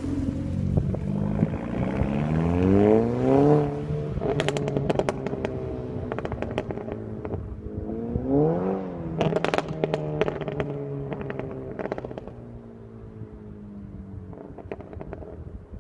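VW Golf GTI MK6's turbocharged 2.0-litre four-cylinder revved up twice through a resonator-deleted Corsa turboback exhaust. Each time the throttle is released, a long run of rapid pops and crackles follows: overrun crackles from the Stratified tune. The crackles thin out and fade near the end.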